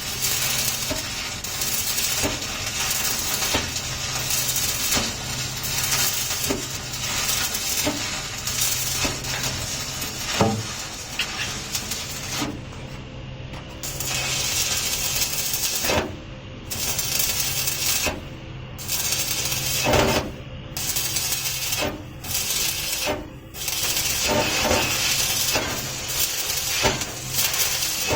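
Inverter stick-welding arc crackling and sizzling as an electrode burns. It drops out briefly several times in the second half as the arc is broken and struck again.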